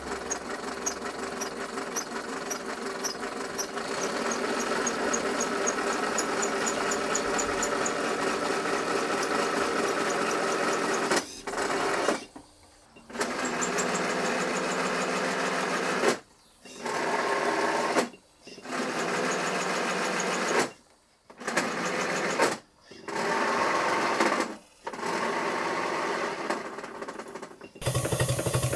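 Small Cheddar Models steam plant in a model paddle steamer running fast with a rapid mechanical clatter. In the second half it stops and picks up again in several short breaks. Near the end a larger twin-cylinder Stuart 5A steam engine takes over with a lower, louder running sound.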